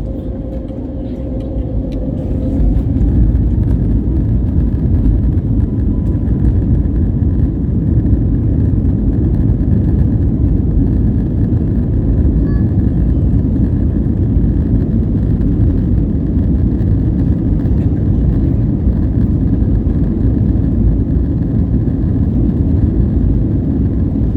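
Airbus A321neo's CFM LEAP-1A engines spooling up to takeoff thrust, heard inside the cabin: a whine rises in pitch over the first two seconds as the rumble grows louder, then holds as a steady loud rumble of the takeoff roll.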